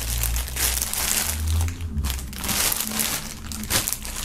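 Clear plastic bag around a folded windbreaker crinkling and rustling in irregular crackles as a hand grips and pulls at it to get it open.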